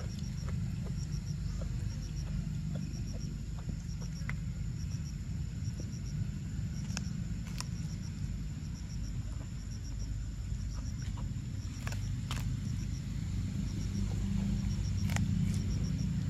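A macaque biting and chewing kernels off a cob of sweet corn, heard as a few sharp crunching clicks over a steady low rumble. Faint high insect chirps repeat in quick threes.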